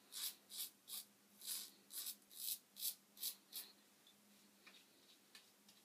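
Merkur 37C slant safety razor with a Treet carbon steel blade scraping over stubble in short, quick strokes, about two or three a second, on a touch-up pass over thinned lather. The strokes stop a little after halfway, leaving only a few faint ticks.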